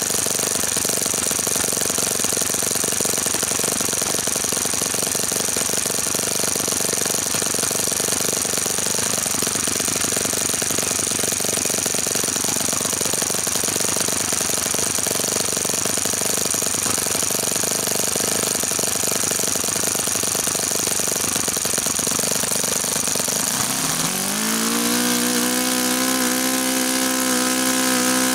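OS FS-60 four-stroke glow engine, freshly rebuilt with all new bearings and swinging a 13x6 wooden propeller, idling steadily. About four seconds before the end the throttle opens and it revs up in a rising pitch, then runs steadily at high speed.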